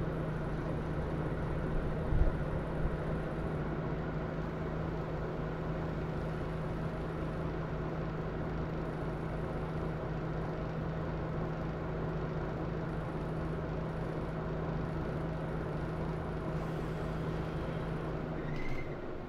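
Scania Citywide LF articulated city bus idling at a standstill with a steady hum, with a single thump about two seconds in. The hum cuts off near the end.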